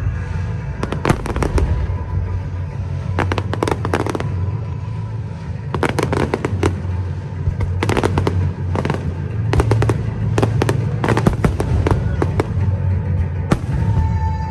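Fireworks bursting overhead in rapid crackling clusters, one volley after another, with a steady low hum of music underneath.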